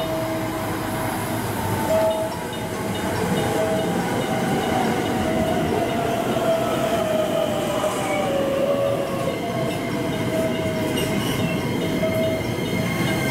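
A twelve-car JR West 225/223-series electric train pulls into the platform and brakes. Its running noise is steady, with wheel squeal and a whine that falls in pitch over several seconds as it slows.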